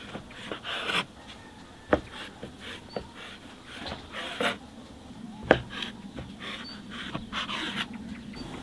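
Kitchen knife slicing rolled dough into strips on a wooden board: soft scraping cuts with a few sharp taps of the blade on the board, the loudest about two and five and a half seconds in.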